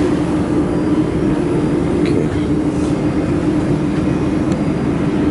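Dust collection fan of a laser welding machine running with a steady hum.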